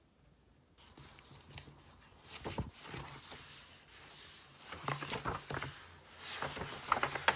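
Paper rustling as the pages of a book are turned and pressed flat by hand, with crisp crinkles and light taps. It starts about a second in and gets busier toward the end.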